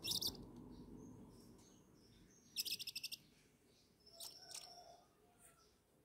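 Owl chick calling for food: a short high hiss at the start, a longer rasping call of rapid pulses about halfway through, then a couple of thin chirps.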